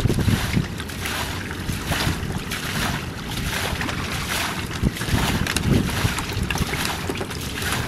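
Hands sloshing and splashing through shallow muddy water in irregular bursts, over a steady rumble of wind on the microphone.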